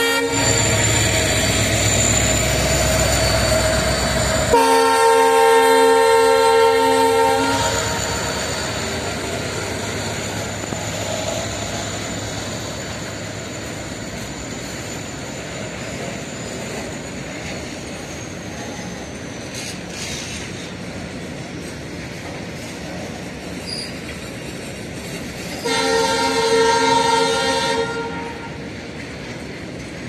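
WDG4 diesel-electric freight locomotive passing close while notching up and accelerating, then sounding its multi-tone horn for about three seconds. Its train of tank wagons then rolls past with a steady rumble and clatter of wheels on rail, and the horn sounds again for about two seconds near the end.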